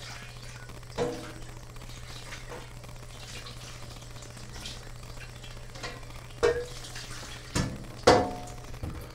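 Kitchen clatter at the counter: four sharp knocks of dishes or utensils, each with a short ringing tone, the loudest near the end, over a steady low hum.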